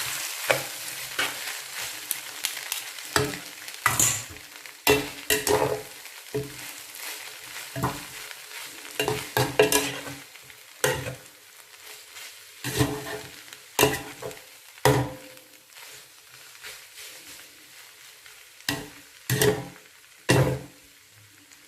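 Chow mein noodles being stir-fried and tossed in a pan: a cooking utensil scrapes and knocks against the pan at irregular intervals over a soft sizzle that fades during the first half.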